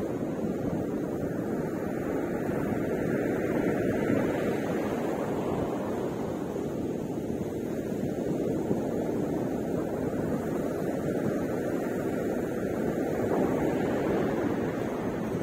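Ocean surf breaking on a beach: a steady wash of noise that swells and eases as the waves come in.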